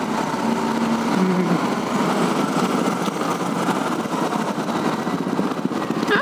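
Motorcycle engine running steadily while riding through city traffic, with road and wind noise.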